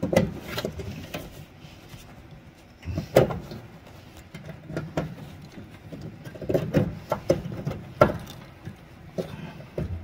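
Handling noise of a gloved hand among furnace wiring: irregular clicks, knocks and rustles as female spade connectors are worked onto the terminals of an electric heat sequencer.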